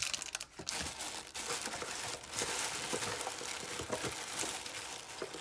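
Crumpled tissue paper rustling and crinkling as hands rummage through a packed cardboard box, with small irregular knocks and clicks as items are handled.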